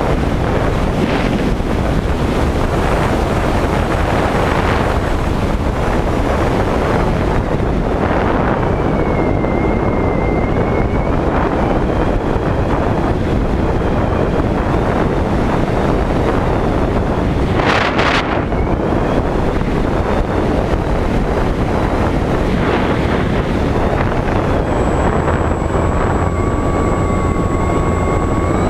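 Airflow rushing over the on-board camera's microphone of a Skywalker 1900 FPV model glider in flight. The whine of its electric motor comes in faintly about a third of the way in and again over the last few seconds, rising at the very end. A short louder gust comes about halfway through.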